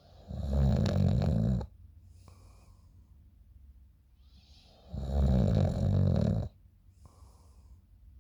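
A sleeping person snoring loudly: two long, rattling snores about four and a half seconds apart, with soft breathing between them.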